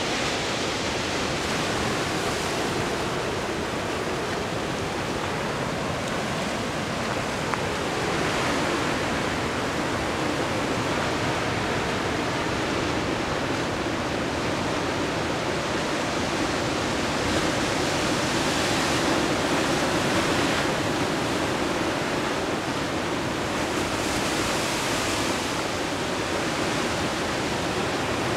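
Ocean surf washing and breaking among rocky coves and outcrops: a steady rush of water that swells a few times as waves come in.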